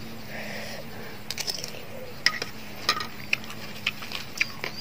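Eating sounds over a basin of spicy papaya salad: a string of sharp, irregular clicks and clinks, starting about a second in, over a low steady hum.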